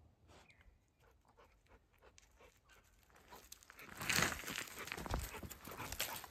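A blue Staffy panting, with footsteps crunching over gravel and dry sticks. Faint scattered rustles come first; the crunching gets much louder about four seconds in.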